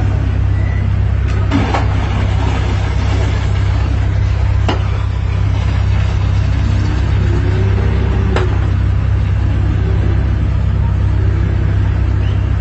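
A steady, loud low rumble like a running engine, with a few sharp clicks.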